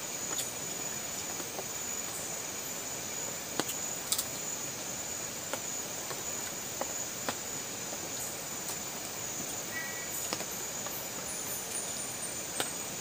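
Insects droning in a steady high-pitched chorus, with scattered light clicks and taps of spoons and dishes, the loudest about four seconds in.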